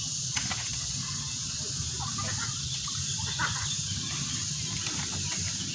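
A steady high-pitched insect chorus over a low rumble, with faint distant voices now and then.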